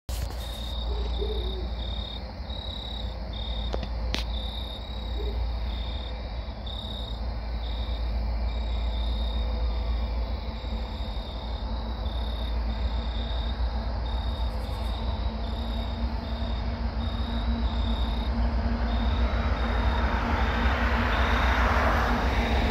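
Outdoor ambience over a constant low rumble: an insect chirping steadily about twice a second, and a bird's faint low hoot twice in the first few seconds. A car passes near the end, growing louder.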